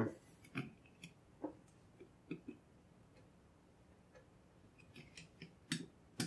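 Light, scattered metal clicks and taps of small pistol parts being handled: a Llama Omni III's spring and spring cover being pressed down over their pin by hand, with a closer run of sharper clicks near the end.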